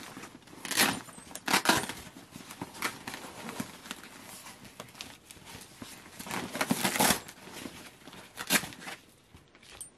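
A hand rummaging inside a Wilson Roland Garros tennis racket bag, the bag's nylon fabric and the things packed in it rustling and crinkling in a series of uneven swishes. The strongest come about a second in, around two seconds, near seven seconds and near eight and a half.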